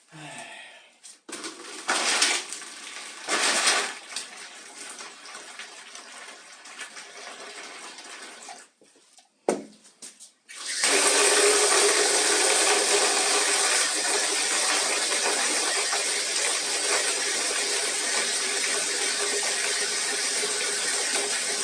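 Water splashing briefly a couple of times, then running steadily into a basin from about halfway through, as for a bath.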